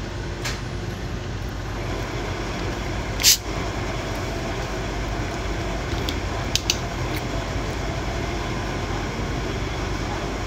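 Steady background rumble and hum, with one brief loud hiss about three seconds in and a few light clicks a few seconds later.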